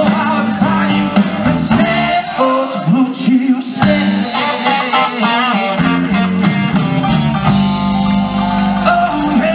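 Live blues-rock band with a male lead singer, electric guitar, drum kit and keyboard playing loudly through a PA. About seven and a half seconds in, the band settles into a long held chord.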